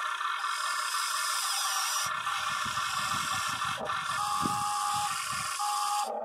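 Huina 580 RC excavator's electric motors and gearboxes whirring as the machine works. From about two seconds in there is an irregular low scraping crackle, typical of the ripper tooth breaking up hard dirt. A brief higher motor whine comes twice in the second half.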